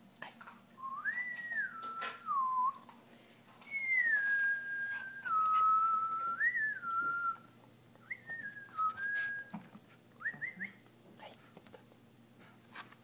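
A person whistling in several short phrases, the pitch sliding up and down and holding between slides, with a quick rising chirp near the end. Faint clicks sound between the phrases.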